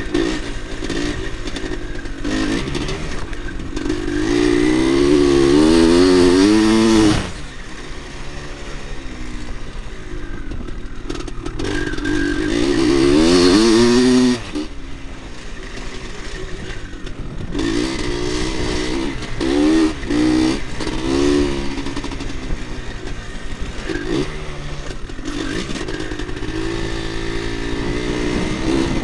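A 1986 Husqvarna 400 motocross bike's two-stroke engine, heard from the bike as it is ridden hard: the engine note climbs in pitch under full throttle and is cut off sharply about seven seconds in and again about fourteen seconds in, followed by shorter bursts of throttle and dips.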